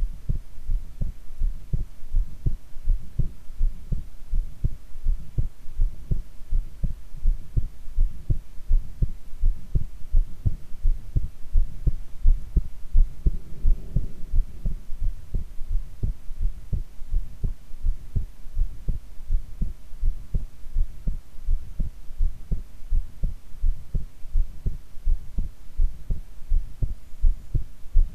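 A woman's heartbeat recorded while she lies face down: a steady, regular rhythm of low, dull thumps.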